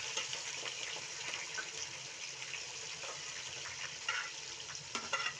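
Meat and freshly added sliced onions sizzling and crackling in hot oil in a kazan, the onion-frying stage of plov. A few sharp clicks come near the end.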